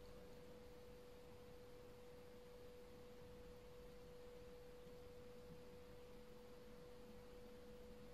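Near silence: faint room tone with a steady, unchanging single-pitched tone held throughout.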